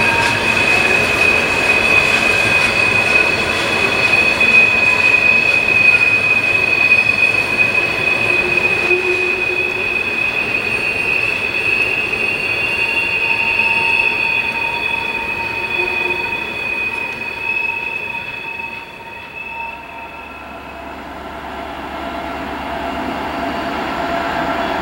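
Loaded coal hopper cars rolling through a curve with a steady high-pitched wheel-flange squeal over the rumble of the wheels. The squeal fades away about three-quarters of the way in. Near the end a low diesel drone builds as the SD40E helper locomotives approach.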